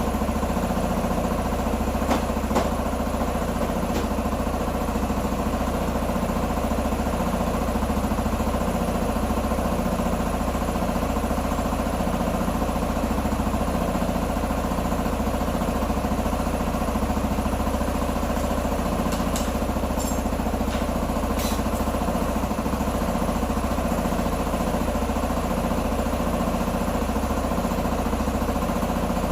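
Q2 125 motorcycle engine idling steadily at an even pace, with a few light clicks about two seconds in and again around twenty seconds in.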